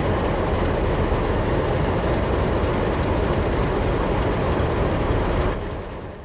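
Alco diesel engines of NSW 44 class and 48 class locomotives idling together in a steady, low-heavy chortling, fading out near the end.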